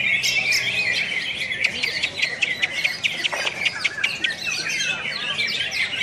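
Several caged green leafbirds (cucak hijau) singing at once: a dense, unbroken stream of rapid, overlapping high chirps and trills.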